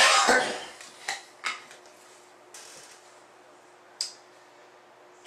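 A brief clatter of an object handled on a glass desktop, then a few sharp single clicks of a computer mouse and keyboard, over a faint steady hum.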